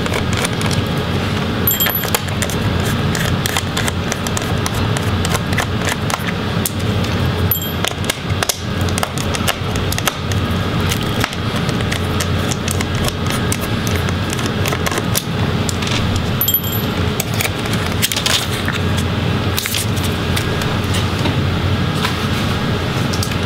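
Screwdriver backing out the small screws that hold a laptop battery, with the clicks and clatter of small metal screws and of hands on the plastic chassis.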